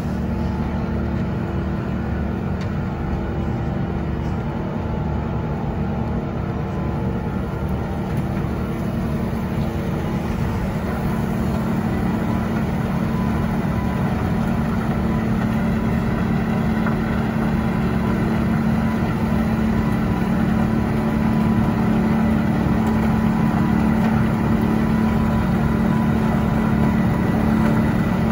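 Heavy snow-removal machinery's diesel engines running steadily at one constant pitch, growing slowly louder in the second half.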